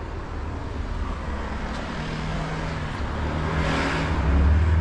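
Road traffic: a motor vehicle's engine hum, with a swell of engine and tyre noise as it passes about three and a half seconds in, getting louder toward the end.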